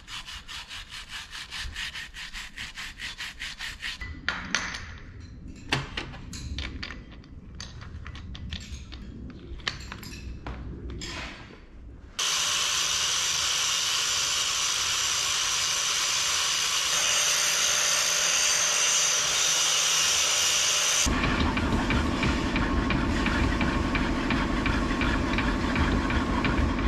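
Rhythmic hand-scrubbing strokes on a threaded steel tractor linkage part held in a vise, cleaning soil and dirt out of the threads. About 12 s in, an angle grinder starts on the threads and runs steadily. About three-quarters of the way through, its sound turns lower and heavier.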